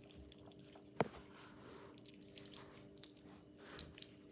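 Wet, sticky glitter slime being squished and pulled between the fingers, giving faint sticky clicks and crackles, with one sharper click about a second in.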